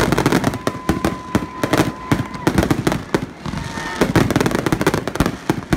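Fireworks display near its finale: a rapid, dense string of shell bursts and crackling bangs overlapping one another, with a steady held tone for about two seconds early in the string.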